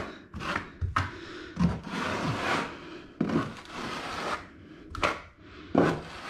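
A notched steel trowel scraping and combing thinset mortar across a Tile Redi shower base, in several uneven strokes with a few sharp taps.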